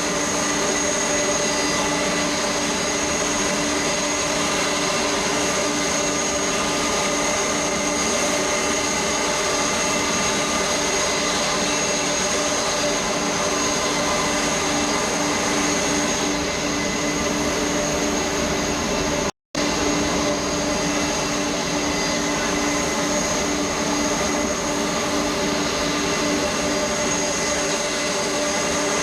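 Jet airliner turbofan engines running steadily at idle: a constant whine over an even rush. The sound cuts out for an instant about two-thirds of the way through.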